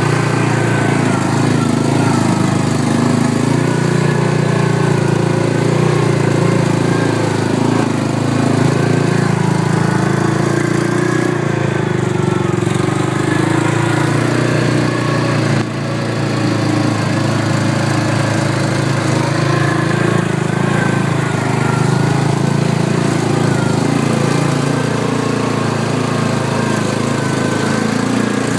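Four-wheel-drive vehicle's engine running steadily as it drives off-road, with a brief dip in level about halfway through.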